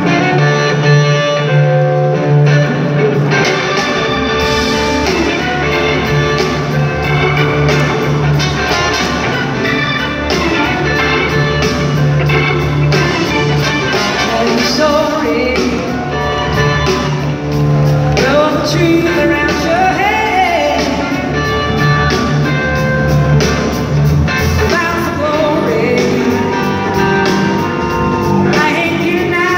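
A blues-rock band playing live, with a lead singer over electric guitar, bass and drums, recorded from the audience.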